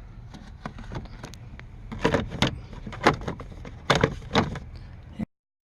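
Plastic steering column cover knocking and clicking as it is pressed and snapped into place, with several sharper knocks in the second half before the sound cuts off suddenly.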